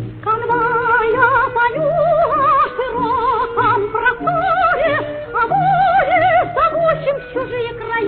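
Operetta song: a female voice singing sustained, high notes with a wide vibrato over a soft orchestral accompaniment.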